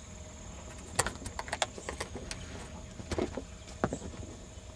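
Handling noise from the hand-held camera being moved: a run of irregular light clicks and ticks over about three seconds.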